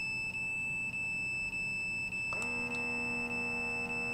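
A signal detector sounding a steady high electronic tone, broken by a short gap about every half second. About two and a half seconds in, a steady motor buzz starts alongside it: the blood pressure monitor's pump inflating the cuff.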